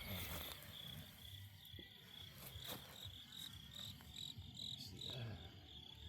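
Crickets chirping, a faint, steady high-pitched pulsing of a few chirps a second.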